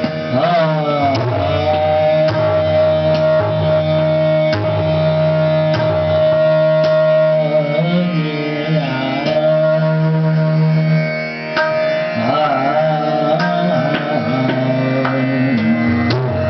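Hindustani classical vocal in Raag Yaman: a male singer's sliding, ornamented phrases over a steady drone, with tabla strokes keeping time.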